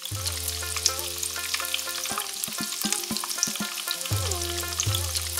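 Shami kebabs frying in oil on a large flat griddle, sizzling with sharp crackling spatters as a metal spatula works among them. Background music of held low notes and plucked notes plays underneath.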